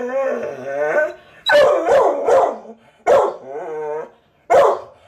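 Pet dog barking, several sharp barks between two long wavering cries, agitated and wanting to be let out.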